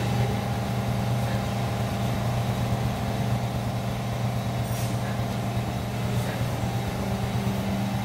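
Honda Biz 125's air-cooled single-cylinder four-stroke engine idling steadily, a low even hum with a rough pulsing underneath.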